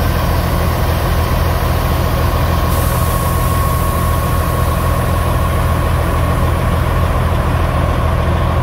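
Semi-truck diesel engine idling: a steady low rumble with a faint steady whine above it.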